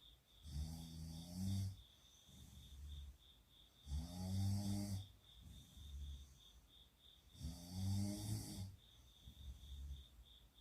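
People snoring in their sleep: three loud, pitched snores about three and a half seconds apart, with quieter breaths between them. A faint, high pulsing tone runs underneath.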